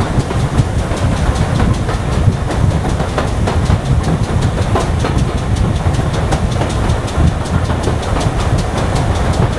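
Steam-hauled passenger train running on the line, heard from on board: a loud, steady rumble of wheels on track with quick light clicks over it.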